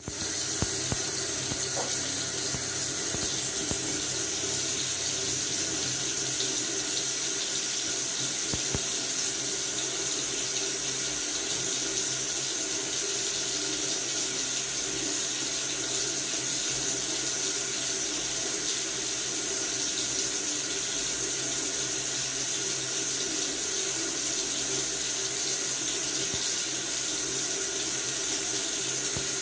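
Faucet running steadily into a sink: a continuous even hiss of tap water, with a few faint clicks in the first couple of seconds.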